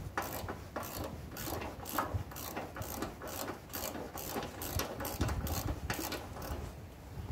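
Hand socket ratchet clicking in a steady run of strokes, about three a second, as a bolt on a garden tractor's frame is turned.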